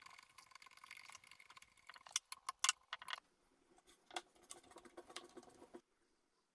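Faint rustling and scraping of a cable being pushed along and tucked into a CNC router's metal rail guard, with a cluster of sharp clicks from the cable and its fittings about two to three seconds in. The sound stops abruptly near the end.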